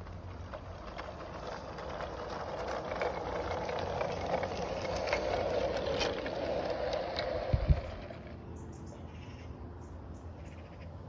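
Garden-railway model train running along the track past the microphone: wheels rumbling on the rails with small clicks, growing louder and then fading away. A brief low thump comes about seven and a half seconds in.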